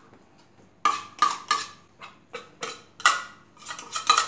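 Metal spoon scraping and tapping tuna out of a tin can into a blender jar: a run of short scrapes and clinks starting about a second in.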